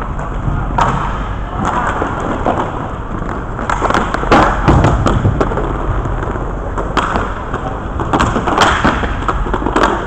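Inline hockey play: skate wheels rolling on the rink floor, with scattered sharp clacks of sticks and puck, a cluster of them about four to five seconds in.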